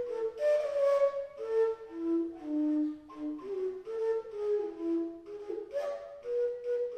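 Fujara, the long Slovak overtone shepherd's flute, playing a folk-song melody: a single line of held notes stepping up and down, each attack breathy.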